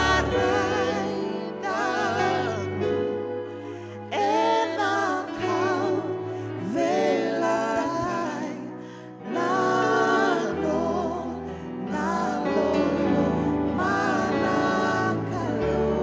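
Gospel worship song sung in Fijian by a woman leading, with a man and another woman singing along, in wavering phrases over steady low sustained notes from the accompaniment.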